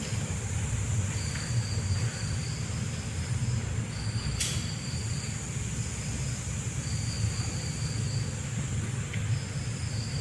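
Night insects trilling steadily in the forest, with a higher trill that comes in spells of about a second, every couple of seconds, over a low steady rumble. A single sharp click falls about four seconds in.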